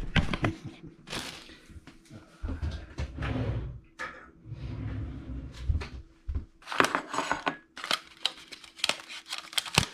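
Food packaging being handled and opened while bee larvae are taken out: many small clicks and rustles with a few light knocks.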